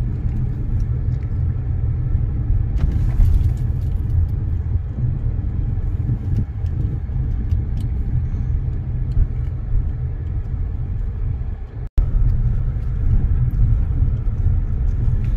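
Steady low rumble of a car's engine and tyres heard from inside the cabin while driving, cutting out for an instant about twelve seconds in.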